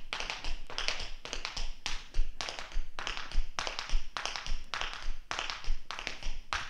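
Tap shoes dancing riffles with a heel drop, repeated in a steady rhythm: quick clusters of sharp taps, each riffle a riff and spank back of three sounds followed by a dropped heel.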